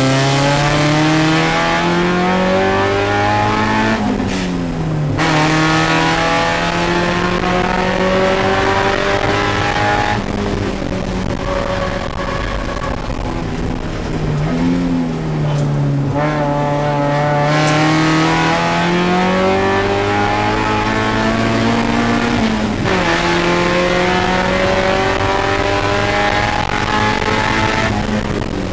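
Spec Miata race car's four-cylinder engine heard from inside the cockpit, pulling hard with its pitch climbing steadily. The revs drop sharply about four seconds in, around fifteen seconds in and about twenty-three seconds in, then climb again each time.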